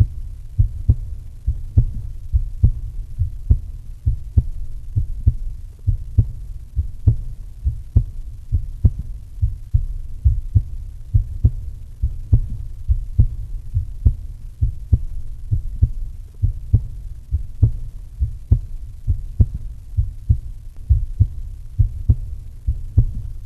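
Deep, regular thumping at about one beat a second over a steady low hum, like a heartbeat.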